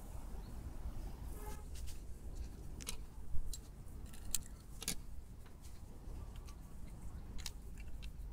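Scattered small metallic clicks and rattles of a micro compound crossbow being handled by hand, the loudest about three and a half seconds in, over a low steady rumble.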